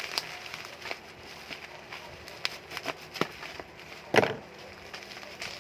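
A tightly packed cardboard box being worked open by hand: scattered crackles, rustles and small clicks of cardboard and packing, with one loud crack about four seconds in.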